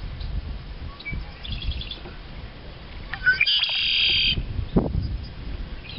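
A songbird singing: a short high trill about a second and a half in, then a louder buzzy trilled phrase lasting about a second, over a low rumble.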